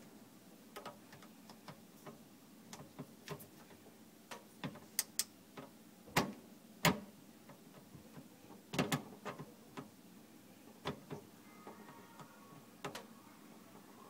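Irregular clicks and small metallic ticks of a screwdriver turning the worm screw of a stainless hose clamp, tightening the dishwasher hose onto the garbage disposal's inlet. A few louder clicks come in the middle.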